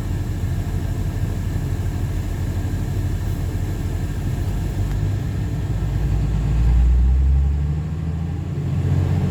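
Steady engine and road rumble heard from inside a moving vehicle. A little past the middle the engine note swells and rises for a couple of seconds as the vehicle speeds up.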